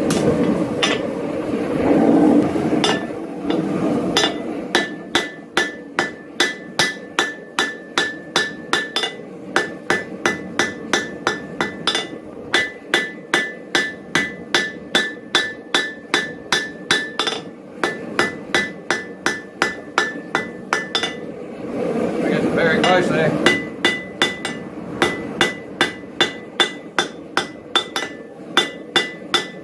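Hand hammer striking red-hot steel on an anvil in long steady runs of about three blows a second, the anvil ringing under each blow: a blacksmith drawing out the taper of a forged J-hook. Two short stretches of rough noise break the runs, near the start and a little over two-thirds of the way through.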